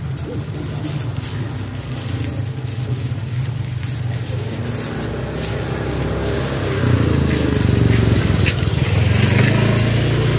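A motorcycle engine passing close by, rising to its loudest over the last few seconds, over a steady low hum.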